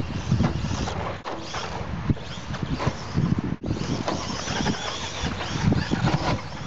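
Electric RC car driving over a dirt track: a constant rattle and crunch of the chassis and tyres on dirt, with the sound cutting out briefly about a second in and again just past the middle.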